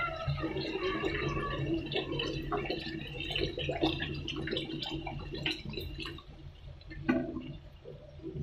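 Water poured from a plastic bottle into a wok of cooking mung dal, splashing and gurgling steadily for several seconds, over a low steady hum. A single sharp knock about seven seconds in.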